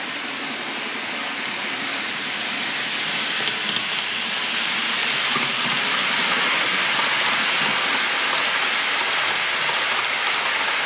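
OO gauge model train in red-and-white LNER livery running past on the track, a steady rushing noise that grows louder from about four seconds in as it comes by. A few clicks are heard around three and a half seconds in.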